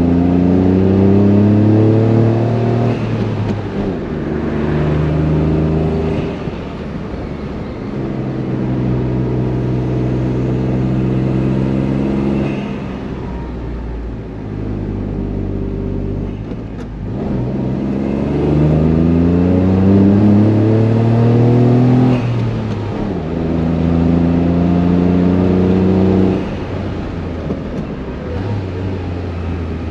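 Honda S660's small turbocharged three-cylinder engine and exhaust working under load up a hill with a manual gearbox. The note climbs, drops at an upshift, holds steady, eases off about halfway, then climbs again through two more shifts.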